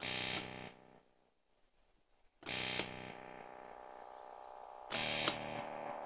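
MFOS Weird Sound Generator synth circuit on a breadboard, played through a Deep Blue Delay pedal, sounding three electronic tones, each starting with a sharp bright attack. The first dies away within about a second. After a short gap the second comes in and holds steady, and the third enters near the end.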